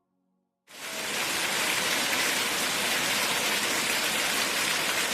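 Steady rain falling, an even hiss that starts abruptly about a second in.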